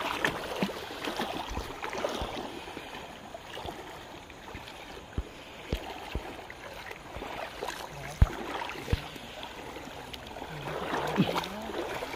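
Feet wading and splashing through shallow stream water, with a few dull thumps, the loudest about eight seconds in.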